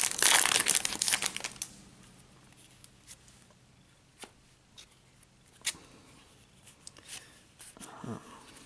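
Foil Yu-Gi-Oh booster pack wrapper being torn open and crinkled for about the first two seconds, then only faint, scattered clicks and taps as the cards are handled.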